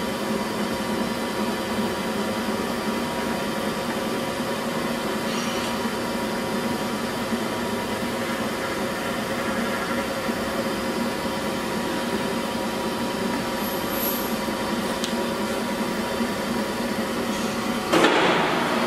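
18-inch LeBlond Regal engine lathe running under power at 97 RPM, its gears set for 40 threads per inch, giving a steady gear whir with a few held tones. Near the end a sudden loud clatter, after which the running note changes.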